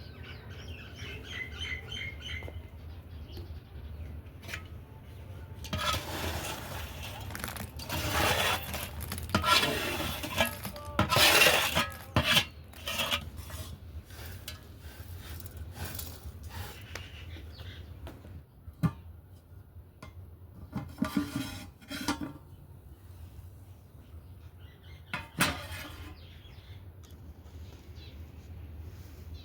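Metal pots and dishes clattering and scraping as they are handled. The busiest stretch comes in the first half, with a few separate knocks and clinks later.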